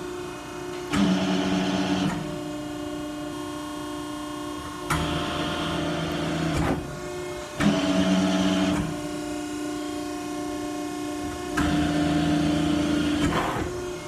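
Cincinnati 90CBX6 hydraulic CNC press brake cycling its ram: a steady pump hum, with four louder stretches of ram travel, each beginning with a sharp click, making about two down-and-up strokes.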